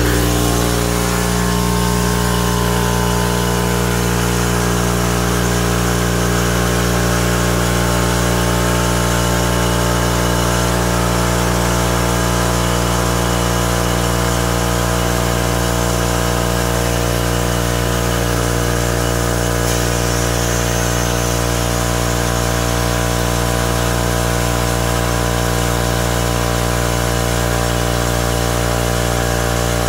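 Air compressor running loudly and steadily, pumping air into a converted pressure-cooker resin-curing pot as the pot's pressure climbs toward 60 psi.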